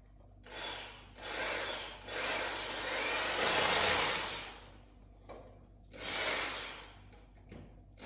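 Power drill boring into the ceiling in four bursts, the longest about two and a half seconds near the middle, the others short.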